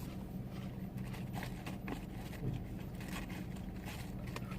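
Steady low hum inside a parked car with the engine or fan running, with scattered faint crunches and rustles.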